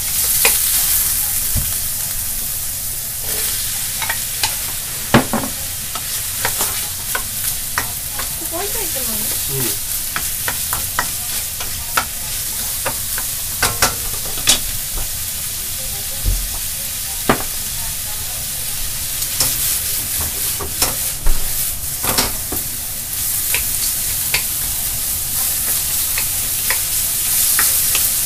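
Pork, onion and mushrooms sizzling in a hot iron wok as a wooden spatula stirs them, scraping and knocking against the pan. The sizzle is a steady hiss, broken by frequent sharp clicks from the spatula.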